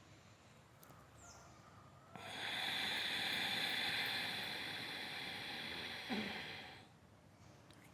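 One long Ujjayi pranayama breath drawn through a narrowed throat: a steady hiss starting about two seconds in and lasting about five seconds, ending well before the end.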